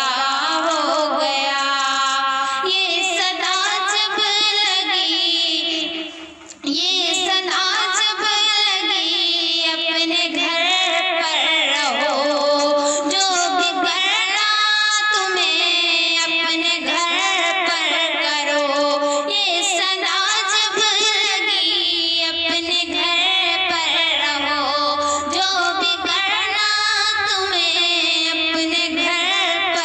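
A female voice singing a slow, ornamented melody, with a short break about six seconds in.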